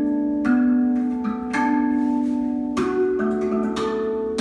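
RAV Vast steel tongue drum played with the fingers: about half a dozen single notes struck one after another, each ringing on so the tones overlap.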